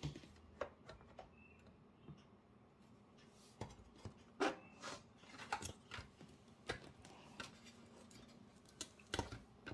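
Irregular light clicks and taps of hands handling a monitor's internal parts while fitting a ribbon-cable connector, with the sharpest knocks about four and a half seconds in and near the end.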